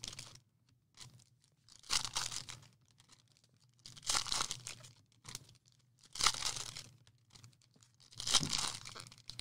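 Foil trading card pack wrappers being torn open and crinkled by hand, in four short crackly bursts about two seconds apart.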